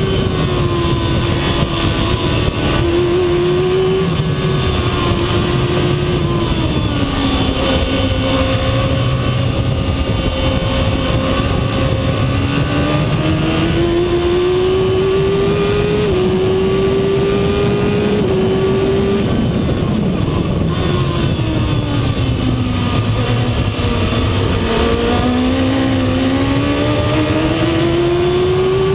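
Shortcar racing car's engine at high revs, heard from its open cockpit: the pitch climbs through the gears with a quick drop at each upshift, and falls twice as the car slows for corners.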